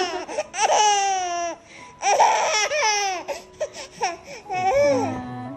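Baby laughing hard in several long, high-pitched squealing runs, each falling in pitch.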